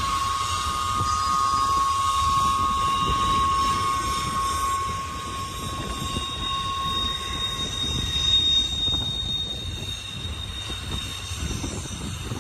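Freight train cars rolling past, the low rumble and clatter of the wheels under a steady high-pitched wheel squeal. A second, higher squeal takes over about halfway through.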